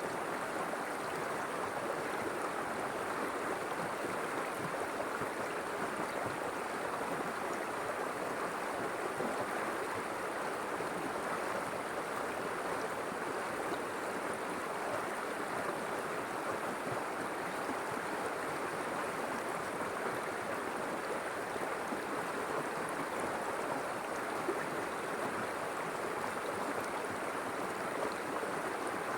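River water flowing steadily, a constant rushing babble.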